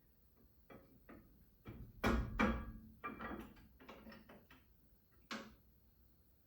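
A series of irregular knocks and clacks from tools and parts being handled, loudest in a pair about two seconds in, with a last single knock near the end.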